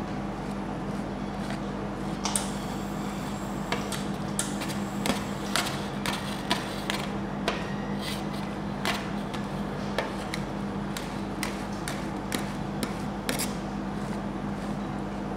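Metal spatulas scraping and tapping on a steel ice cream cold plate as a thin sheet of ice cream is spread and smoothed, giving many sharp clicks and scrapes at an uneven pace. A steady low hum runs underneath.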